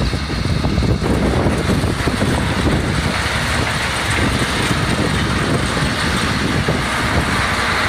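Tractor engine and a two-row sugar beet harvester running steadily under load, a dense mechanical rumble and clatter.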